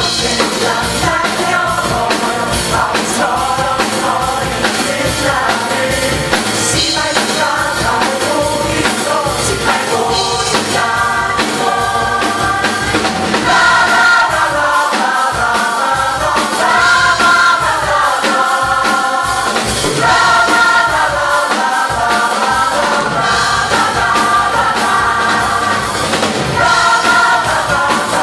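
Musical theatre ensemble singing together in chorus, accompanied by a live band with piano and drums playing a steady beat.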